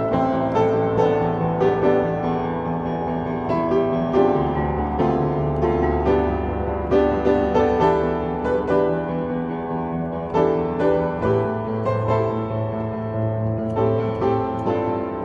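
Solo piano playing a pop melody over held chords and bass notes.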